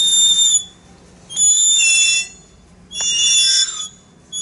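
Running motor-generator set squealing in short, high-pitched pulses, three in a row about a second and a half apart, each holding a steady pitch.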